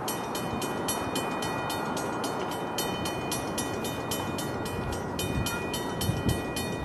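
A railroad warning bell ringing rapidly and evenly, about four strikes a second, with a short break about five seconds in, as a train approaches. A faint steady horn tone sits under it, with wind rumble on the microphone.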